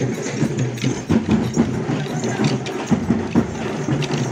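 Short wooden sticks clacking together in a kolata stick dance, many dancers striking rapidly and out of step, over a steady din of percussion.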